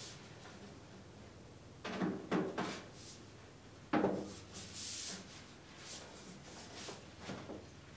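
Six-inch black stovepipe sections being fitted together by hand: a few knocks of the sheet-metal pipe, the loudest about four seconds in, followed by scraping as one section slides onto the elbow.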